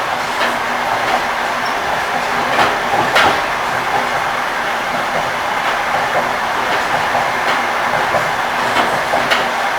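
Railway carriage wheels clacking over rail joints: a steady running noise broken by sharp knocks at uneven intervals, roughly every half second to a second and a half.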